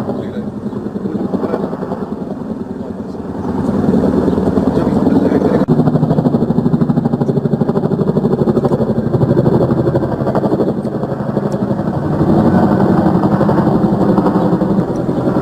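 Apache attack helicopter flying, its rotor beating in a rapid, regular pulse over the engine sound, growing louder about four seconds in.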